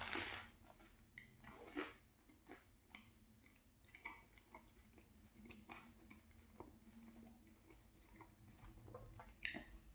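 Soft close-up chewing of a chicken and cheese hoagie, with scattered small mouth smacks and clicks and a louder burst about half a second in.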